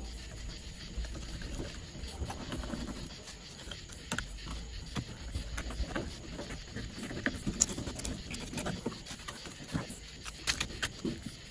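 Fillet knife cutting and scraping along a redfish on a cutting board, with scattered sharp clicks, taps and wet handling noises as the fillet is worked free.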